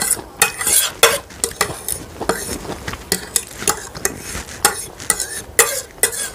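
Metal fork scraping and clinking against a ceramic plate as leftover noodles are gathered, in a rapid, irregular run of sharp clicks and scrapes.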